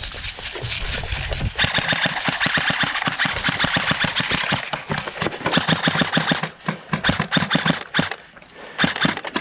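Airsoft rifles firing in long, rapid volleys of sharp clicking shots, with brief pauses and a fresh volley near the end. A low rush of wind on the microphone comes before the firing starts about a second and a half in.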